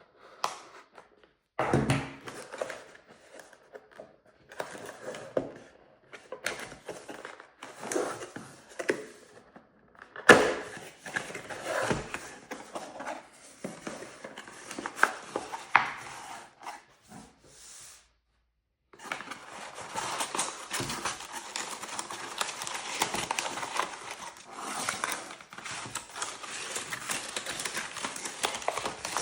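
Packaging being opened and handled during an unboxing: irregular rustling with scattered knocks and clicks, then steady crinkling for the last third.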